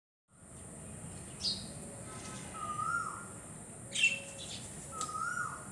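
Bird-like chirping: two sharp chirps and two clear whistled notes that rise and then drop away.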